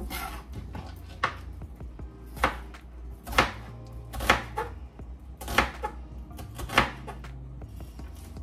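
Knife chopping onion on a plastic cutting board: about seven separate cuts, roughly one a second, each a sharp knock of the blade on the board.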